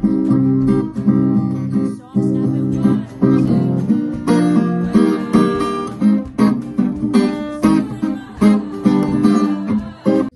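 Acoustic guitar strummed, a steady run of ringing chords stroke after stroke.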